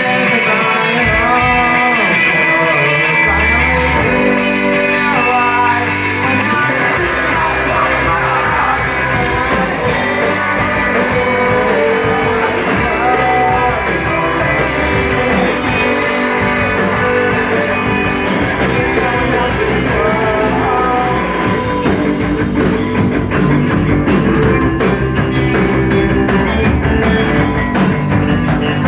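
A band playing a rock song live, with guitar and singing; the bass and low end fill out about seven seconds in.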